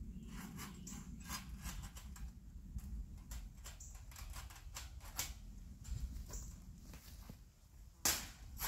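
Irregular metallic clicks and rattles of wire fencing being worked onto a metal fence post, with one sharp clank about eight seconds in, the loudest sound.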